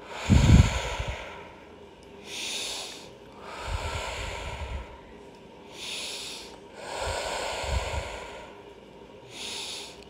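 A woman breathing deeply and audibly: about three slow cycles of breaths in and out, a shorter breath alternating with a longer one, the longer breaths carrying a low rumble.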